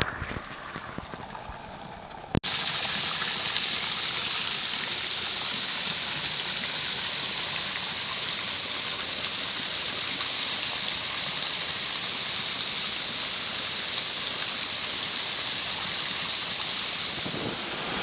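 Waterfall: a steady rush of falling water. It is quieter for the first couple of seconds, then jumps up suddenly and holds steady.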